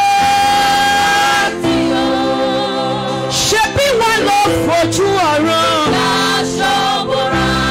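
A woman sings a gospel worship song into a microphone. She holds one long high note for about a second and a half, then sings bending, ornamented runs over sustained backing chords.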